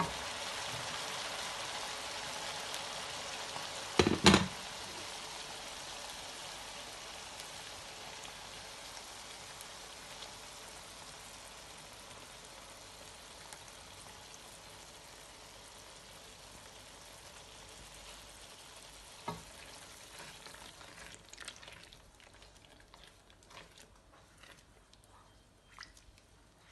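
Masala frying in oil in a wok, sizzling steadily and then fading slowly as the flame is turned right down. There is a loud knock about four seconds in and a sharp tap later. Near the end come light clicks and scrapes from a spatula stirring the paste.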